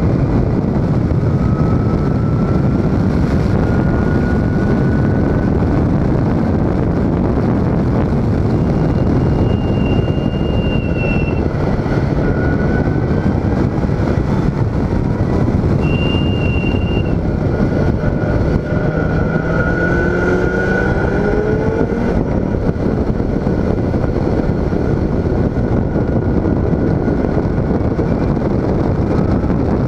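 Open-cockpit track car at speed on a circuit: heavy wind rush over the cockpit mixed with the engine running, its revs rising and falling in places. Two short steady whistling tones stand out, one about ten seconds in and one about sixteen seconds in.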